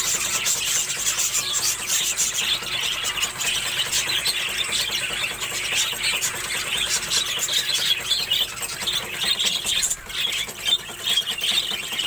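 A flock of budgerigars chattering all at once: a dense, continuous, high-pitched twitter of many overlapping short chirps and warbles.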